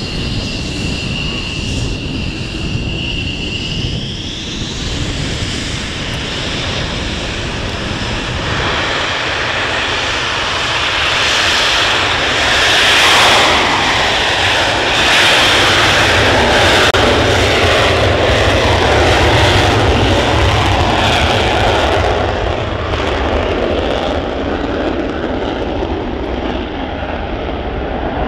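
F-16 fighter jet's turbofan engine running up for takeoff: a high whine rises in pitch about four seconds in, then it breaks into a loud, crackling roar through the takeoff roll that peaks midway and thins out as the jet moves away.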